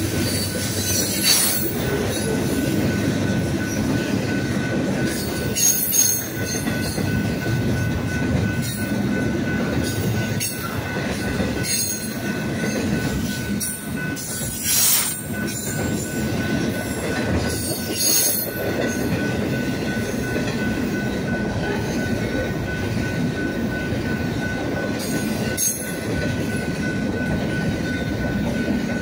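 Freight cars of a double-stack intermodal train rolling past close by: a steady heavy rumble of steel wheels on rail, with a thin steady wheel squeal and a few sharp clanks at intervals.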